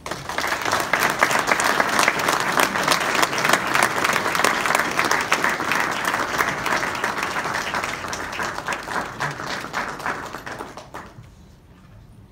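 Audience applause in a hall: many people clapping, starting suddenly, then thinning and dying away about eleven seconds in.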